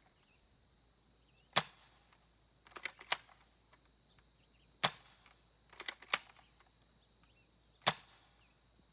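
Spring-powered airsoft rifle, an M1 Garand replica, firing 0.40 g BBs: a run of sharp snaps, single ones spaced about three seconds apart with close pairs of snaps between them.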